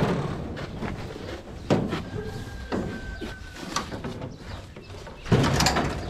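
A door shuts with a slam, followed by scattered knocks and clatter over a low engine hum, with a second louder burst of clatter about five seconds in.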